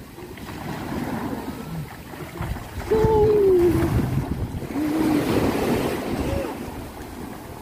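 Small waves breaking and washing up a sandy beach, with wind buffeting the microphone. A voice calls out, long and falling in pitch, about three seconds in, and shorter calls follow.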